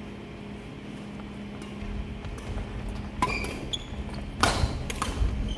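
Badminton rackets striking a shuttlecock in a doubles rally: sharp cracks about three seconds in and twice more near the end, with short shoe squeaks and footfalls on a wooden gym floor.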